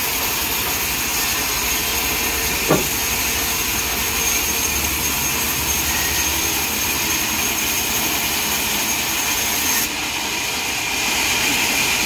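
Large vertical sawmill band saw running: a steady hiss with a constant high whine, with a single short knock a little under three seconds in. The sound grows a little louder near the end.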